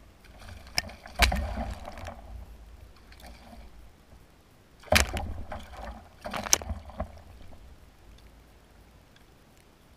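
Sharp knocks and splashes from a plastic sit-on-top kayak and the water beside it, in three bunches: about a second in, about five seconds in, and again around six and a half to seven seconds in, while a fishing rod is bent hard under load.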